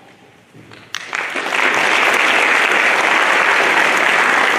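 Audience applauding: after a brief near-quiet, a sharp click about a second in, then the clapping starts and holds steady.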